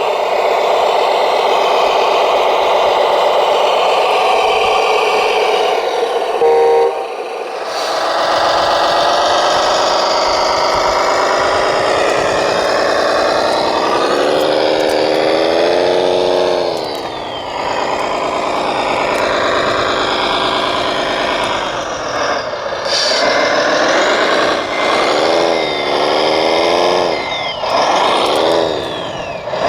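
RC truck's engine sound, revving up and falling back several times, with a short run of beeps about seven seconds in.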